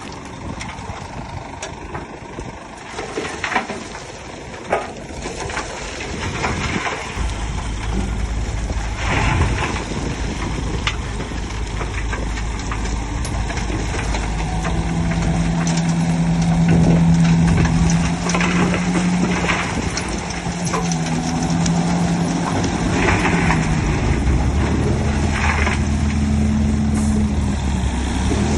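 Heavy diesel earthmoving machinery at work. Scattered knocks and clanks come first, then from about a quarter of the way in a big engine runs louder, its note stepping up and down.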